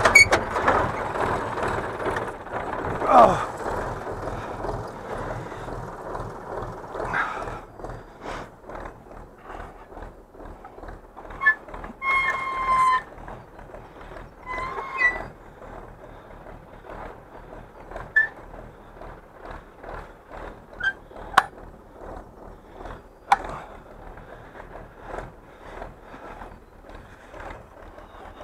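Tractor engine running loudly for the first few seconds, then much fainter. After that come scattered metallic clanks and rattles from the steel finger-wheel hay rake being handled and adjusted, with a couple of short ringing metal tones about halfway through.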